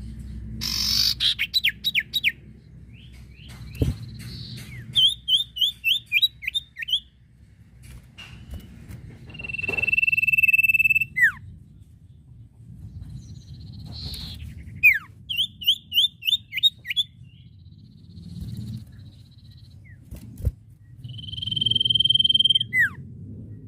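Common iora (sirtu/cipoh) singing: runs of five or six quick downward-slurred notes alternating with a long, steady whistle of about a second and a half that ends in a sharp falling note, the cycle heard twice. A low rumble sits underneath, with a couple of single knocks.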